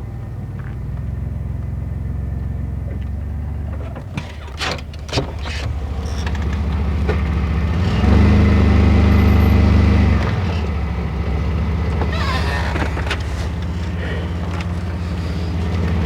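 2004 Chevy Blazer's 4.3-litre V6 running with an exhaust leak at the muffler from a broken bolt. It revs up for about two seconds around eight seconds in as the truck climbs onto ramps, with a few knocks shortly before.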